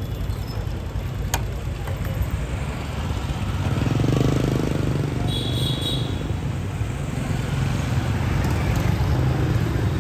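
Street traffic: engines of passing vehicles running steadily, swelling as one passes close about four seconds in, with a short high beep just after the middle.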